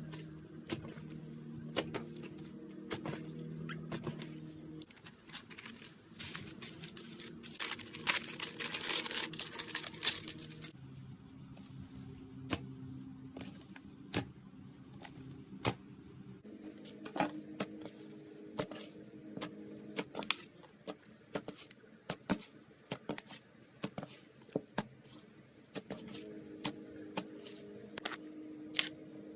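Slime being squished and poked, making many small sticky pops and clicks, with a denser crackling stretch from about six to ten seconds in.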